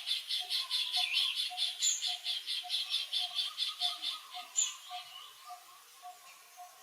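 Rhythmic wild animal calls, short pulses repeating about four times a second, with a couple of brief high chirps; the pulsing fades away after about four seconds.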